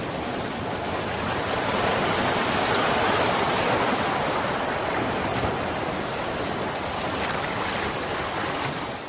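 A steady rushing noise like surf or running water, swelling over the first three seconds, slowly easing off, then stopping.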